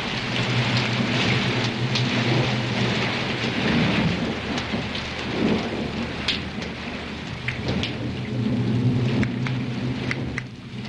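Heavy rain pouring, with scattered drop patters and a low, steady rumble of thunder under it.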